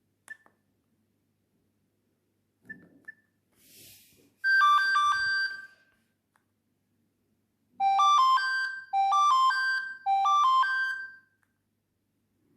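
Nokia 6600 mobile phone playing one of its built-in polyphonic ringtones: a few soft clicks, then a short electronic melody phrase, and after a pause a short rising phrase played three times in a row.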